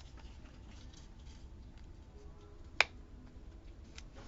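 Faint handling of paper stickers and a planner on a desk, with one sharp click a little under three seconds in.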